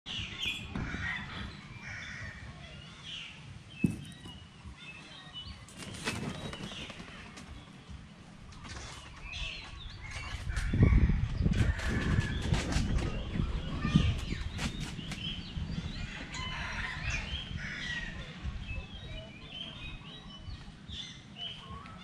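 Several birds chirping and calling on and off, with a few sharp clicks and a stretch of low rumbling noise, loudest from about ten to fourteen seconds in.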